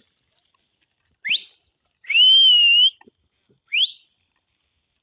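A person whistling three times: a short upward-sweeping whistle, a longer held whistle that wavers slightly in pitch, then another short upward sweep.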